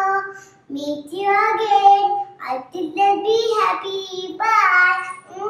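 A young girl singing a few short phrases with held notes, with a brief pause about half a second in.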